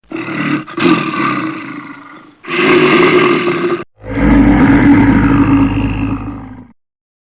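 A large animal roaring three times in a row, each roar a separate clip cut off sharply; the third roar is the longest and has a deep low rumble under it.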